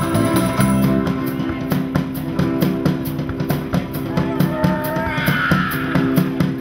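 Background music: a rock track with a steady drum beat and guitar.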